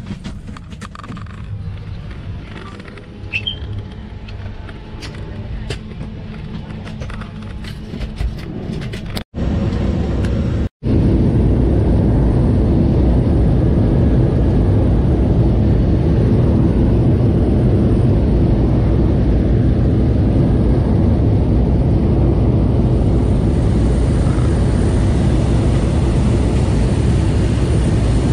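Seaplane's propeller engine heard from inside the cabin. A moderate rumble with scattered clicks runs for about nine seconds. After two abrupt cuts it gives way to a loud, steady engine and propeller drone in flight.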